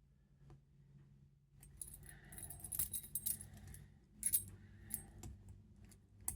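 Small padlock keys jangling and clinking as they are worked off their key ring: quiet for the first second and a half, then a run of light, high metallic clinks.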